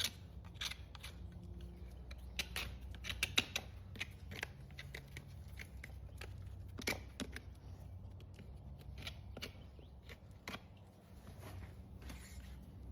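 Farrier's hoof nippers cutting an overgrown horse hoof: a run of irregular crisp snips, thick in the first few seconds and sparser later.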